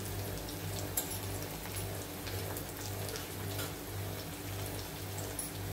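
Onions and tomatoes frying in oil in a kadai: a steady sizzle with scattered small crackles, over a steady low hum.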